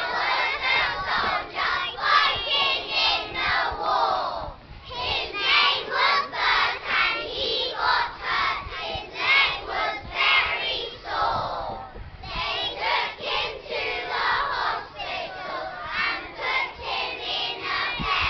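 A large group of young children chanting a poem together in unison, in rhythmic phrases with short breaks about four and a half and twelve seconds in.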